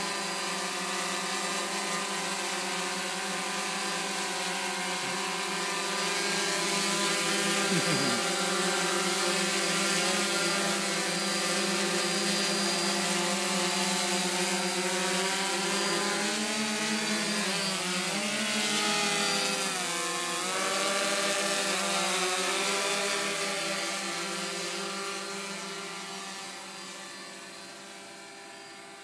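DJI F550 hexacopter's six electric motors and propellers running: a steady buzzing whine made of several tones. The tones waver and shift in pitch for a few seconds around the middle, and the sound fades out near the end.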